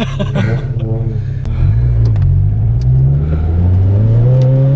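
Turbocharged car engine accelerating hard, its pitch and loudness rising steadily through a gear from about a second and a half in.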